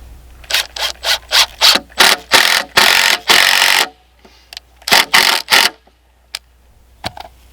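A screw being driven into a wooden batter board with a cordless drill, in a string of short bursts that get longer, the longest about 4 s in, then three more short bursts about 5 s in.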